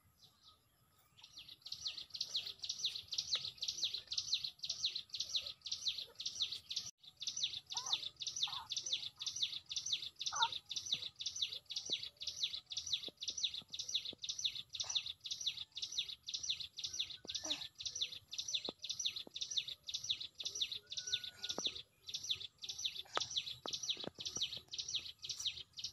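A high-pitched animal call from the trees, repeated in a steady rhythm about three times a second. It starts about a second in and pauses briefly near seven seconds in. A few fainter, lower chirps sound now and then.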